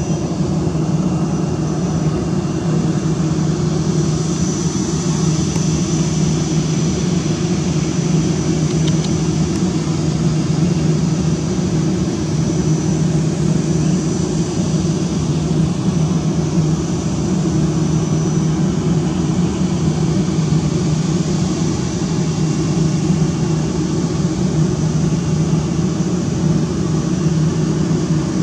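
Airbus A320's twin jet engines running steadily at low taxi power: an even low rumble with a thin high fan whine over it.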